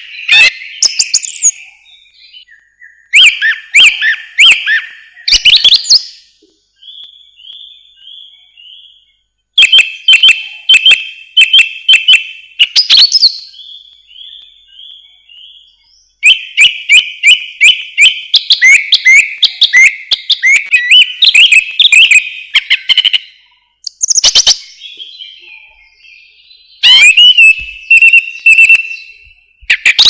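Song thrush singing: loud phrases of sharp notes and trills broken by short pauses, some phrases made of one short note repeated several times over.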